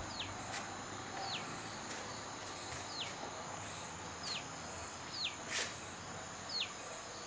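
Quiet natural ambience: a bird repeats a short, high, downward-sliding call about every second or so, over a steady high insect drone and a few faint clicks.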